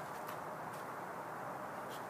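Steady outdoor background hiss, with a few faint ticks.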